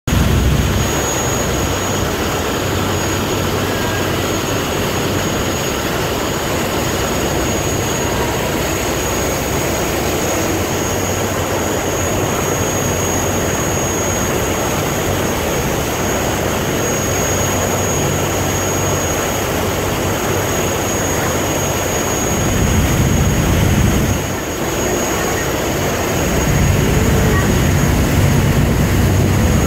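A fast boat's engine running steadily at speed under the rush of its churning wake, with a thin steady high whine over it. The low rumble swells briefly about three-quarters of the way through and again near the end.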